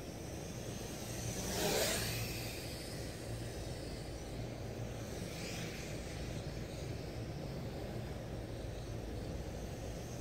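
MJX X600 hexacopter's six propellers buzzing steadily in flight, with a brief louder whoosh about two seconds in.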